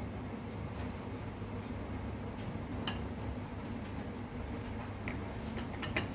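Pot of Thai sour curry simmering on a stove: a steady low rumble with faint ticks, and two sharp clicks, one about three seconds in and one near the end.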